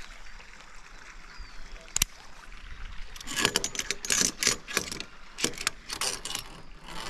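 Metal climbing gear clinking and rattling: a single sharp click about two seconds in, then a quick run of clicks and jangles from about three seconds on.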